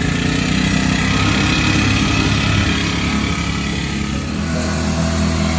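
Small petrol engine of a grass-cutting machine running steadily, easing off briefly about four seconds in and then picking up again.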